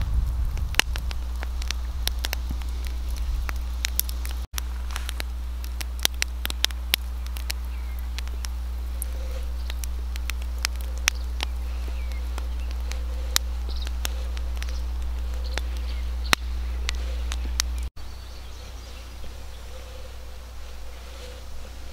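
Campfire crackling: scattered sharp pops and snaps over a low steady rumble, which cuts off about eighteen seconds in to a quieter outdoor ambience.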